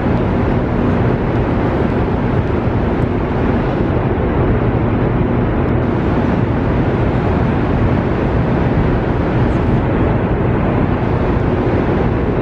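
Steady loud rumble deep inside Hoover Dam, with a faint steady hum underneath.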